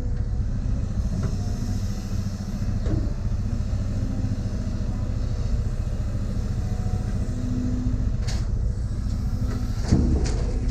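Diesel engine of a tracked earthmoving machine running steadily under work, with a few sharp metallic clanks; the loudest comes near the end.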